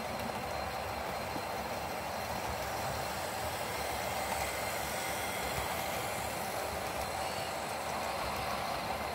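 HO scale model freight train running past on its track: a steady running noise of model locomotive motors and wheels on the rails, with a faint steady hum.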